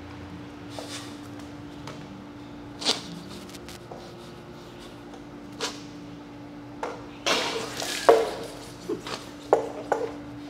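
Stifled laughter from people holding water in their mouths: short snorts and puffs of breath through the nose, a few at first and then coming quickly one after another in the last few seconds, over a steady hum.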